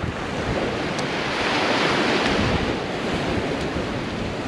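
Sea waves washing onto a sandy beach, the rush swelling about a second in and easing off after about three seconds, with wind buffeting the microphone.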